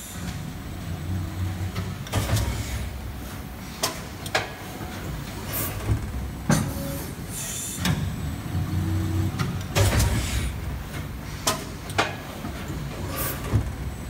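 Highsun HXH330 high-speed hydraulic injection molding machine cycling on a 32-cavity plastic spoon mold. A low rumble swells twice, about seven seconds apart, as the machine runs through its cycle. Sharp metallic clacks and short hisses come throughout.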